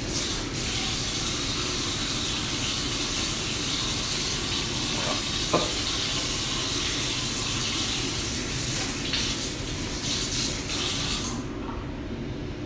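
Kitchen mixer tap running into a stainless-steel sink as salt-cured mackerel fillets are rinsed under it to wash off the salt. There is a single short clink about halfway through, and the water shuts off about a second before the end.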